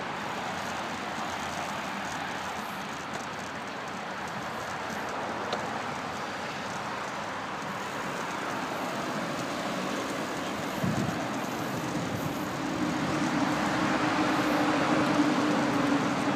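Steady rushing noise of riding a bicycle past road traffic, with cars going by on the road beside the path. A vehicle's hum grows louder over the last few seconds.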